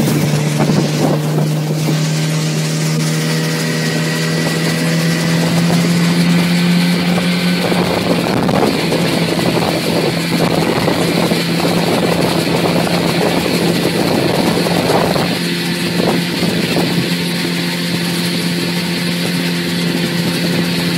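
Outboard motor running steadily at speed under load, towing a rider on a rope, with a steady engine drone. A rushing noise of wake and air grows louder for several seconds in the middle.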